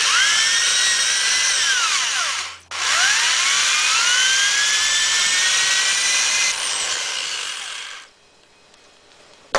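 Electric drill running twice, spinning a Makita deck-screw setting bit against the flash hole of a brass .223 case to bore it out. Each time the motor whine rises as it spins up, holds, then falls away as it stops. The first run is about two and a half seconds, the second about five.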